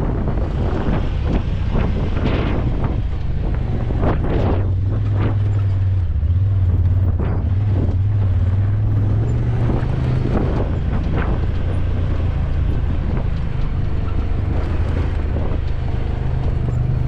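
A vehicle's engine running steadily while riding along, its note creeping slightly higher in the second half, under heavy wind buffeting on the microphone.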